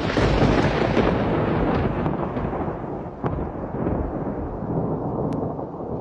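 Thunder: a sudden loud clap that rolls on into a long rumble and slowly fades, with two brief sharper cracks about three and five seconds in.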